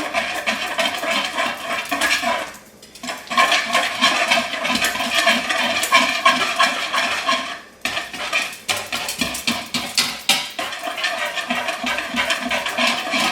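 Small wire whisk beating eggs into mashed banana in a mixing bowl: rapid clinking and scraping against the bowl, stopping briefly twice.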